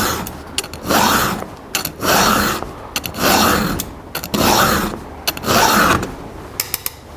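Round chainsaw file rasping across a chain's cutter tooth in six steady strokes, about one a second, as the chain is hand-sharpened freehand.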